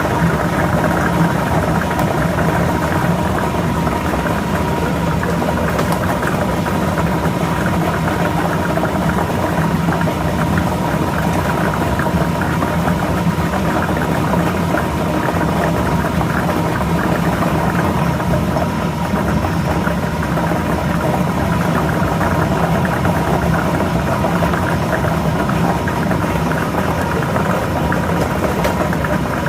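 Lottery ball machine running: a steady motor hum with the balls tumbling and clattering inside the drum.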